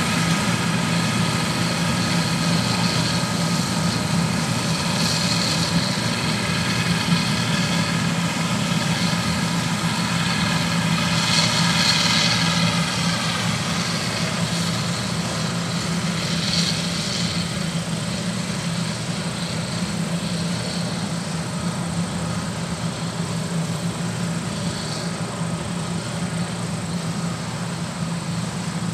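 John Deere combine harvester running steadily: a low engine drone under a layer of high machinery whine, with a few brief louder swells, fading gradually over the second half.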